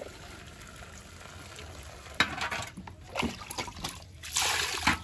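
Water sloshing and splashing as raw pork intestines and offal are washed by hand in a metal basin. Quiet at first, then irregular splashes from about two seconds in, loudest near the end.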